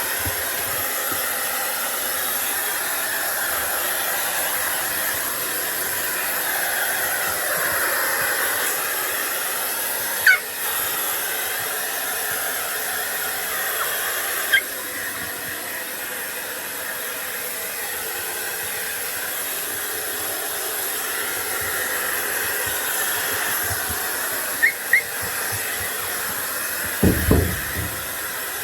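Hair dryer blowing steadily. A few short, sharp high yips from a Papillon–Corgi mix dog cut through it, and a louder, low burst near the end, as the dog objects to the dryer.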